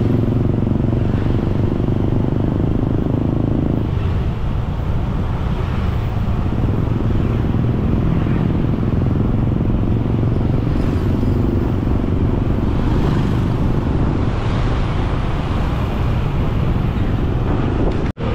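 Motorcycle being ridden along a road, its engine running steadily under continuous road noise. The sound cuts out for an instant near the end.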